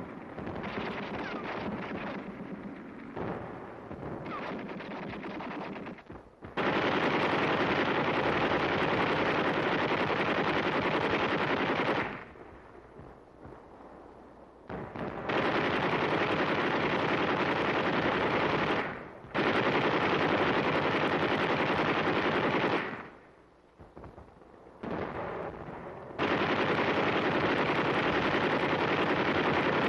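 Machine-gun fire: scattered, quieter firing for the first few seconds, then four long sustained bursts of several seconds each with short pauses between them.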